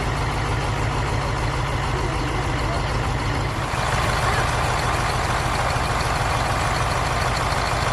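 An engine running steadily at idle. About four seconds in its tone changes and it gets slightly louder.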